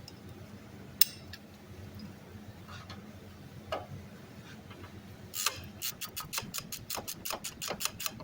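Hand ratchet being worked on a bolt: a sharp metallic click about a second in, a few scattered clicks, then a quick run of ratcheting clicks, about five or six a second, through the last third.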